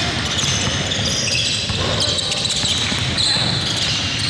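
Basketball game sounds: a ball bouncing on a gym floor, with short high squeaks through the game noise.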